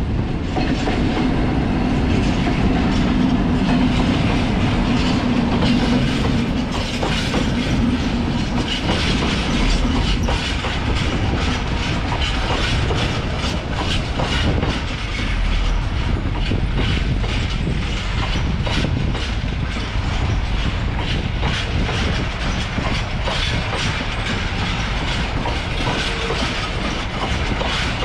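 Freight train of GBRf hopper wagons rolling past, the wheels clicking over the rail joints in a steady run of clatter. A low steady hum in the first several seconds fades out.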